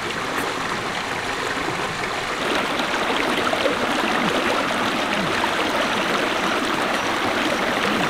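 Shallow rocky stream rushing and splashing over boulders, a steady flowing-water sound that grows a little louder about two and a half seconds in.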